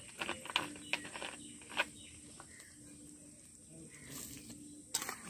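Metal slotted spatula tapping and scraping against a kadai while chicken curry is stirred: a handful of sharp clinks in the first two seconds and another near the end. A faint steady low hum runs underneath.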